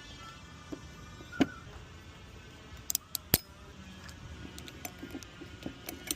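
Metal tools and brake parts clinking and clicking during a brake job: a handful of sharp metallic clinks, the loudest about a second and a half in and just past halfway.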